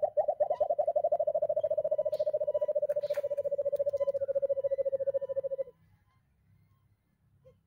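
White-eared brown dove call: spaced low hoots speed up into a rapid, even series of hoots at one pitch, which stops abruptly after about five and a half seconds. One faint hoot follows near the end.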